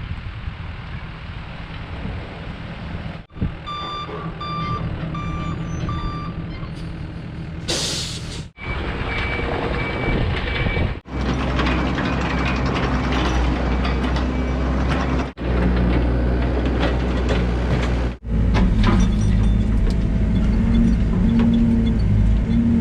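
Heavy diesel machinery running steadily, broken by several abrupt cuts. A reversing alarm beeps about four seconds in, a short air-brake hiss comes a few seconds later, and another beeping tone follows.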